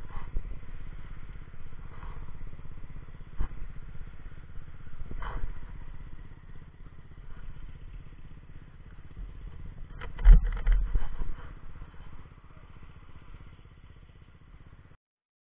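Motorcycle engine running at low speed in slow traffic, a steady low rumble, with a cluster of loud knocks or thumps about ten seconds in.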